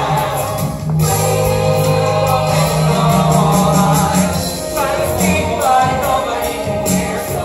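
Voices singing a musical-theatre song over instrumental accompaniment, with sustained low bass notes underneath.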